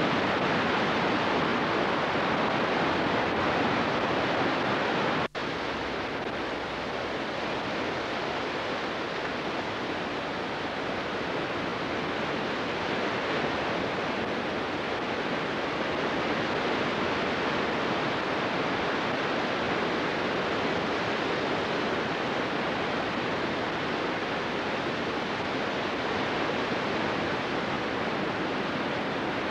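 Steady rushing noise of sea surf, with one brief dropout about five seconds in, after which the rush carries on slightly quieter.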